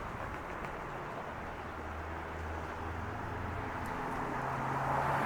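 A motor vehicle passing on the road, its engine hum rising in pitch and growing louder toward the end over a steady rush of tyre noise.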